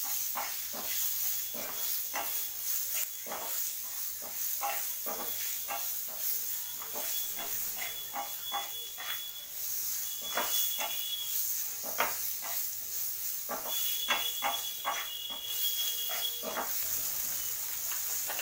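Chopped onion and green capsicum sizzling in a non-stick pan as a spatula stirs them, clicking and scraping against the pan at irregular intervals.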